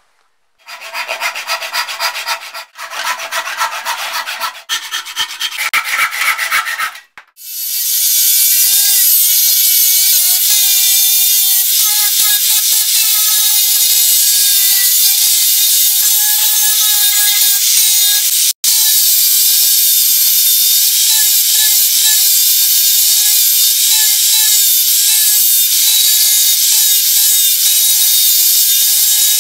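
A hand saw cutting a wooden board in quick strokes for about six seconds, with two short pauses. Then an angle grinder runs continuously, its abrasive disc grinding down the wooden blank of an axe handle, with its pitch wavering slightly under load.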